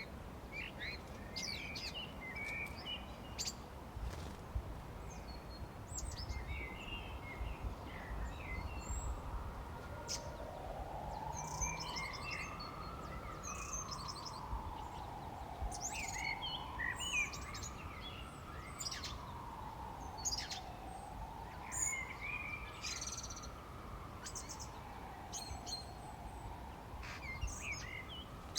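Spring birdsong ambience: many small birds chirping and trilling on and off throughout. From about ten seconds in, a smooth tone slowly rises and falls in pitch, about once every five seconds, beneath the birds.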